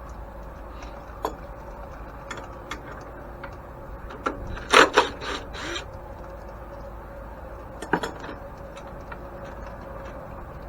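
Tools and metal parts of an antique grain mill clicking and knocking as it is taken apart: scattered light clicks, a cluster of loud knocks about halfway through, and another pair a few seconds later.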